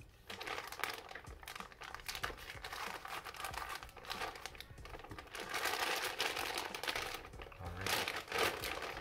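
Large clear plastic parts bag crinkling and rustling as it is cut open with scissors and handled, louder a little past the middle.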